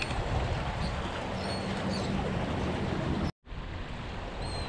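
Wind on the microphone over sea water washing against jetty rocks, a steady rushing noise, with a few short, faint, high chirps from birds. The sound cuts out for an instant a little over three seconds in.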